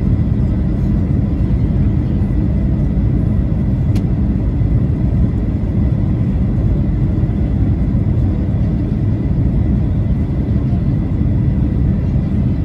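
Steady cabin noise inside a Boeing 737-800 descending on approach: a deep rumble of airflow and its CFM56-7B jet engines, with a faint high steady tone and a brief click about four seconds in.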